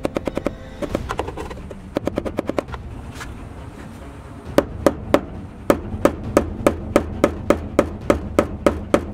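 Hammer blows on a rod driving the metal lock ring of a 2017 Nissan Sentra's fuel pump counterclockwise to loosen it. Quick runs of sharp taps, a lull a little after the middle, then steady blows about three a second.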